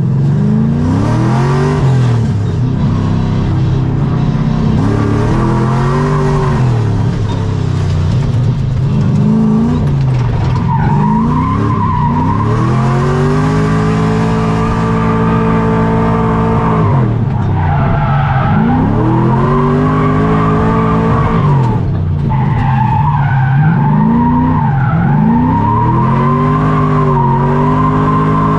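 Drift car at full power: the engine revs hard, its pitch climbing and dropping again and again every couple of seconds, with longer pulls in the middle. Tires squeal over it, a wavering screech that runs through much of the second half.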